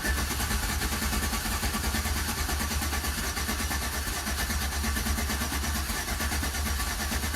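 Chevrolet Silverado V8 being cranked over by its starter without firing, a steady, even pulsing churn as each cylinder comes up on compression, for a relative compression test. The mechanic judges the starter to be dropping out and on its way out.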